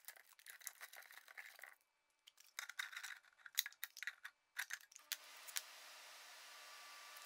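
Aluminum foil HVAC tape crinkling and crackling as it is wrapped and pressed around a PVC pipe joint, in short irregular bursts of small clicks. From about five seconds in, only a faint steady hiss with a low hum remains.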